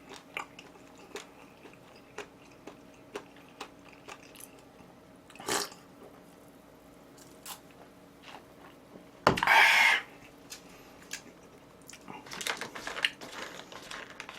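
Close-miked eating sounds: chewing and biting with scattered small wet clicks, a louder noisy burst a little past halfway, and denser chewing toward the end.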